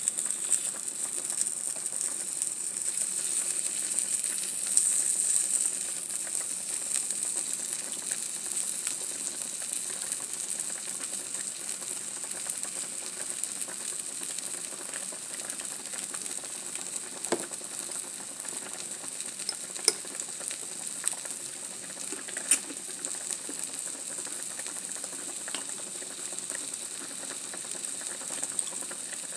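Food sizzling on a hot griddle pan: a steady frying hiss, a little louder in the first few seconds, with a few sharp clicks of a fork on the pan later on.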